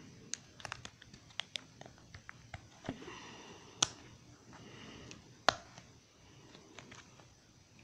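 Plastic Lego bricks being handled and pressed together: scattered small clicks, with two sharper snaps near the middle about a second and a half apart.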